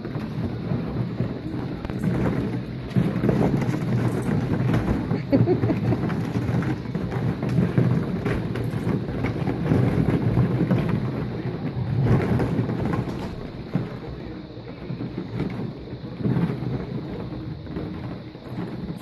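Hollow plastic play balls clattering against each other and the plastic wading pool as golden retriever puppies scramble through them: a dense, continuous rattle, busiest in the first half and easing off near the end.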